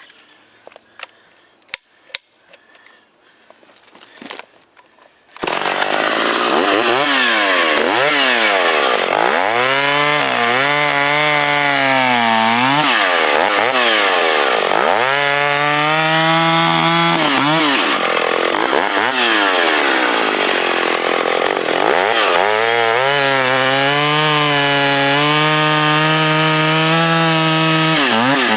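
Vintage Stihl two-stroke chainsaw that comes in suddenly about five seconds in, after a few faint clicks. It revs up and down between three steady, lower-pitched stretches where it is under load cutting through the log.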